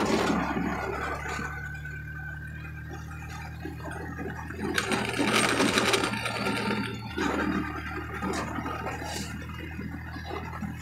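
A small vehicle engine runs steadily while driving along a paved road, its hum dropping in pitch about seven seconds in. A louder rush of noise comes between about five and seven seconds in.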